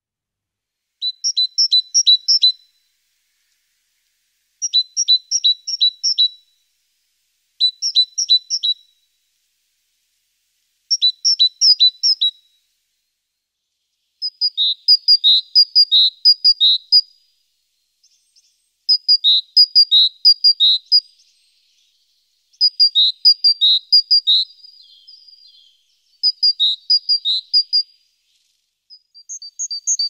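A small songbird singing: about nine short phrases of high, quickly repeated two-note whistles, each phrase lasting one to three seconds with brief pauses between. The phrases run longer from about halfway through.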